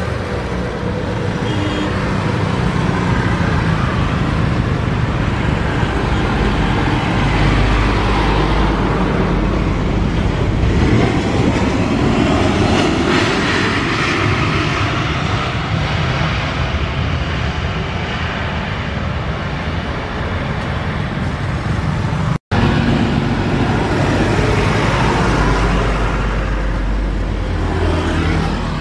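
CFM56-7B jet engines of a Boeing 737-900ER landing and rolling out on the runway: a loud, steady roar that swells as the airliner passes and then eases. About three-quarters of the way through, the sound breaks off for an instant, and another Boeing 737's jet engines come up on final approach.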